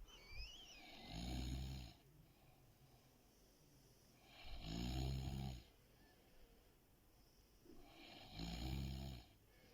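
A sleeping person snoring: three snores, each about a second long, roughly three and a half seconds apart.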